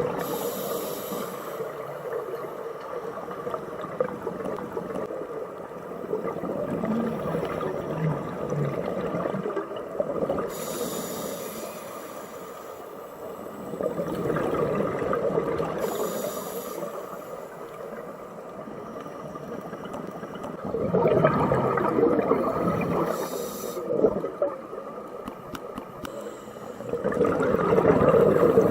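Scuba diver breathing through a regulator underwater: a hiss on each inhalation and a burst of bubbling on each exhalation, repeating every six or seven seconds.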